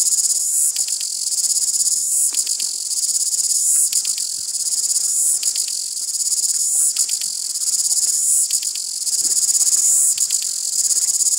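Cicada singing on a tree trunk: a loud, high-pitched buzz with stretches of rapid pulsing.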